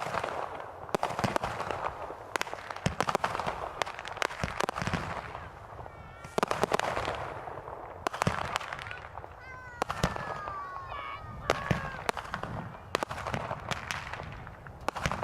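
Consumer fireworks going off in a rapid string of sharp bangs and crackles, with a hissing rush between the shots and several falling whistle-like tones about two-thirds of the way through.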